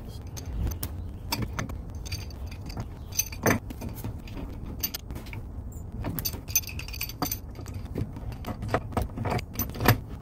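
Pipe wrench clinking and scraping on steel gas-meter piping as a fitting is turned, a string of irregular sharp metallic clicks.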